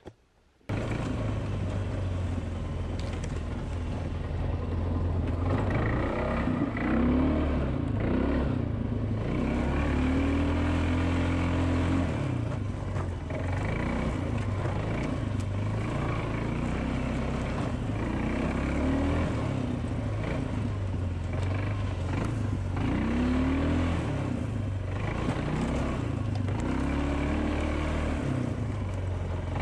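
ATV engine running hard as the quad rides a wooded trail, heard from an onboard camera. The sound cuts in sharply just under a second in, and the engine note rises and falls repeatedly as the rider works the throttle.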